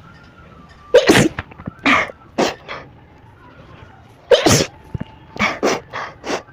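A person sneezing hard twice, about a second in and again just past four seconds in, each time after tickling the nose with a blade of grass. Each sneeze is followed by a few short, weaker bursts.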